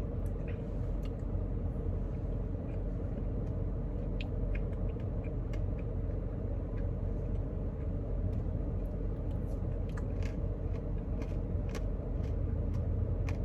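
Steady low rumble of an idling car, with faint scattered clicks and crunches of someone eating a Blizzard with a spoon.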